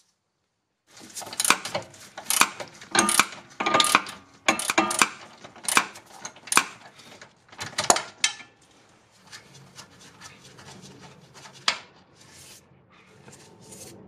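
Metal tools and parts clinking and rattling. From about a second in, there are loud, irregular clinks with a short ring, roughly two a second. After about eight seconds only a few scattered clinks remain over a faint steady hum.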